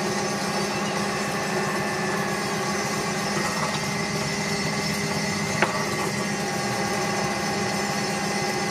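Drill press motor running steadily while the bit drills into a hand-forged bar held in a drill press vise. One sharp knock a little past halfway.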